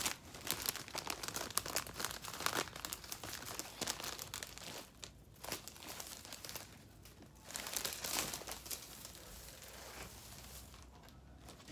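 Plastic gift-wrap film crinkling as it is handled and folded: dense crackling for the first several seconds, then a few shorter bursts, dying away near the end.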